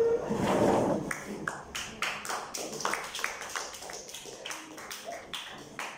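A run of sharp taps, about three a second, after a louder noisy stretch in the first second.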